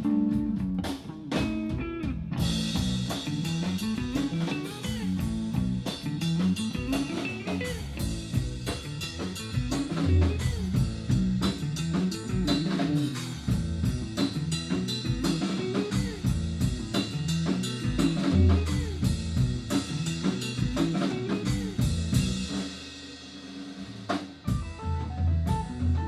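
A rock band playing live: drum kit with rimshots and cymbals, bass and electric guitar. The playing drops back briefly near the end, then comes in again.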